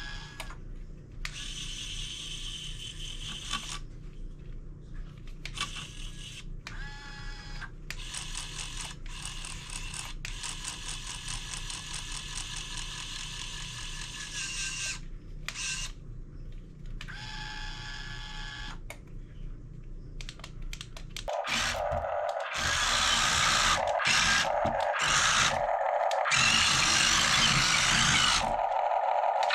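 Small electric motors and gearboxes of a 1:16-scale radio-control Cat 272D skid steer whirring in stop-start bursts. About two-thirds of the way through, a louder, harsher whir with short breaks takes over.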